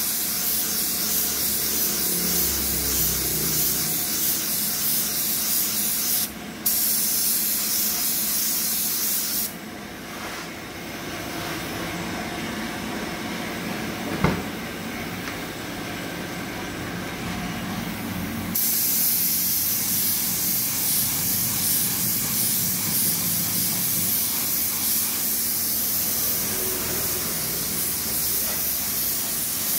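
Paint being sprayed onto a car body panel: a steady hiss in long passes. It cuts out for a moment about six seconds in, sinks to a weaker hiss from about ten to eighteen seconds with one small click in the middle, then comes back full.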